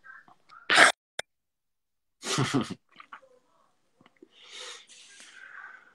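A man who is smoking a cigarette coughs: one sharp, loud cough about a second in, then a rougher burst of three or four coughs around two and a half seconds. Near the end comes a long, soft breath as he draws on the cigarette.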